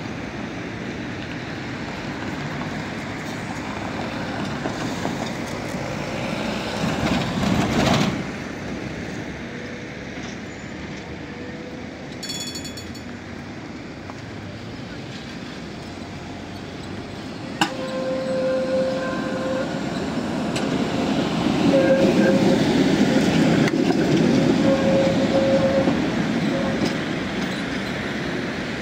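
Tatra T4D tram running along the street. About twelve seconds in there is a brief high ringing tone, and in the second half the tram grows louder under a steady whine.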